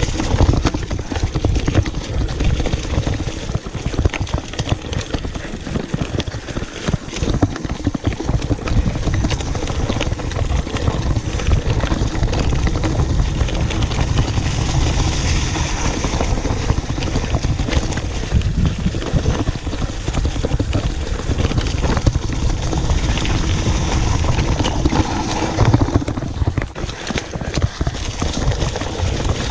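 Mountain bike rolling over a dirt and leaf-covered trail: a steady rumble of tyres and wind on the microphone, with constant clattering knocks as the bike rattles over bumps.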